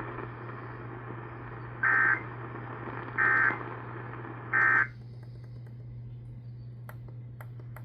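Emergency Alert System End-of-Message signal heard over AM radio: three short, loud bursts of digital data tones (the EAS 'NNNN' squawk), about 1.3 s apart, closing the severe thunderstorm warning. A steady low hum and static hiss run underneath; the hiss drops after the third burst, and a few static clicks come near the end.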